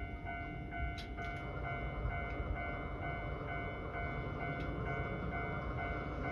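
Electronic warning alarm of a Japanese level crossing on a funicular cable-car line, ringing at about two strikes a second over a steady low rumble; it signals that a cable car is approaching the crossing.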